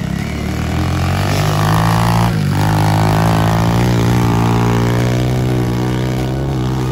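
Small motocross bike engine running hard, its pitch held fairly steady, with a brief dip a little over two seconds in.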